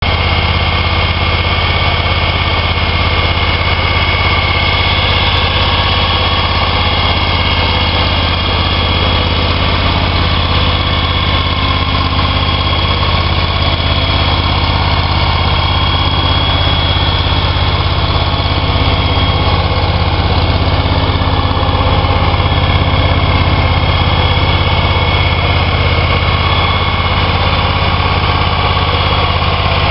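Scag Turf Tiger zero-turn mower's engine idling steadily and loud, with no change in speed.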